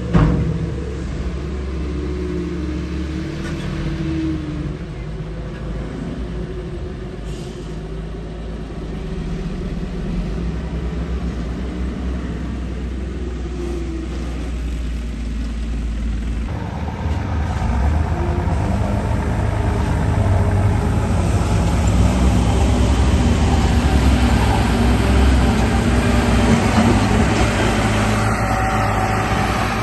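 Radio-controlled bulldozer running: a steady, engine-like low drone that grows louder about halfway through.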